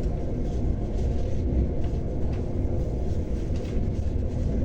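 Steady low rumble of a moving passenger train heard from inside the carriage, with faint short rattles now and then.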